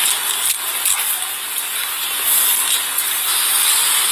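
Steady hiss with rustling and a few short clicks, picked up by a police body camera's microphone as the wearer moves and turns.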